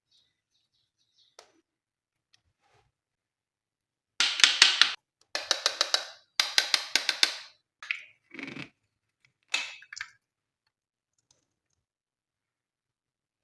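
Glossy slime being pressed and worked by hand, giving three runs of fast crackling clicks and pops, followed by a few shorter crackles.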